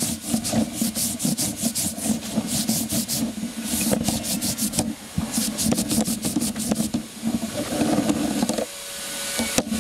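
Hand-worked strip of wooden belt pieces being rubbed and scraped, with quick repeated strokes, several a second, over a low hum. Near the end the strokes give way to a steadier hiss.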